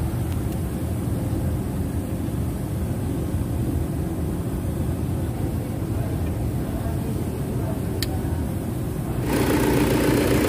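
Toyota Fortuner engine idling steadily, with the sound growing louder and fuller a little past nine seconds in.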